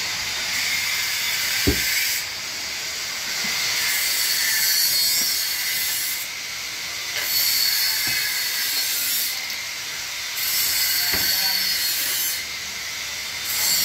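Upholstery fabric rustling with a hiss as it is pulled and smoothed over a wooden sofa-arm frame, swelling and easing every couple of seconds, with a few light knocks, the sharpest about two seconds in.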